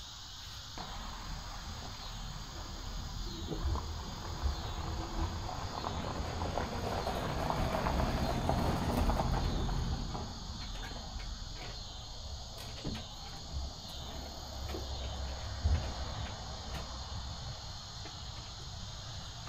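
Insects chirring steadily, with a low rumble that swells and fades in the middle and a few light knocks.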